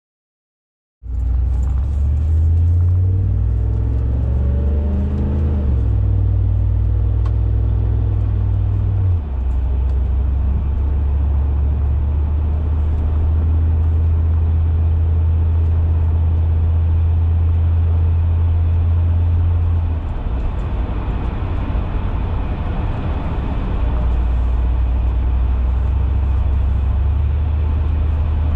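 Deep exhaust drone of a 2002 Cadillac DeVille's Northstar V8 with a Thrush performance exhaust and the resonator deleted, heard from inside the cabin. It starts after about a second of silence, rises in pitch as the car accelerates, dips briefly around nine seconds, then holds a steady low drone at cruise, eases off about two-thirds of the way through and settles back into the drone near the end.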